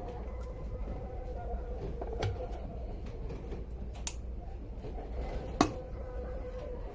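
Kitchen handling noises: a few sharp clicks and knocks, the loudest about five and a half seconds in, over a steady low hum.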